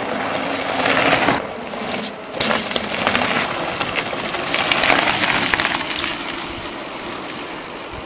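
Mountain bike tyres rolling over a loose gravel dirt road, a continuous crunching crackle that swells twice as riders pass.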